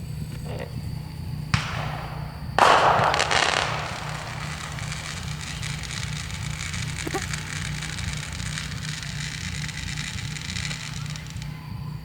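Fireworks going off: a single sharp bang, then about a second later a louder crackling burst that dies away into a fainter crackle lasting several seconds.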